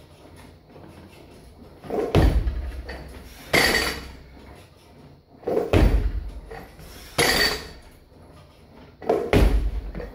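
Loaded barbell with bumper plates being cleaned repeatedly: three heavy thuds about three and a half seconds apart as the bar is received in the catch, with a sharper clank of bar and plates between each pair.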